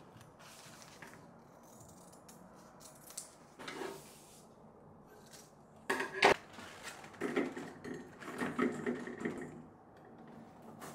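Faint rustling of cloth with a few small snips as scissors cut the tags off a waffle-weave dish cloth. About six seconds in comes a sharp clatter on an enamel-coated metal colander, then a run of knocks as small oranges are dropped into it.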